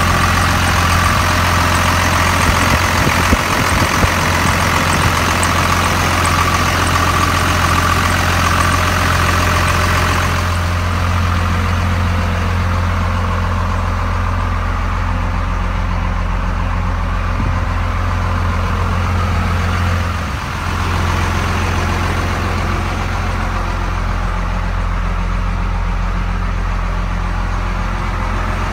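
Cummins 5.9-litre diesel of a 1999 Ford F800 idling steadily. It is heard close up in the open engine bay at first, then, from about ten seconds in, duller from inside the cab.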